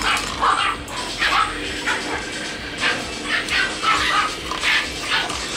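Miniature dachshund puppies yipping and barking over and over in short, high-pitched bursts, two to three a second.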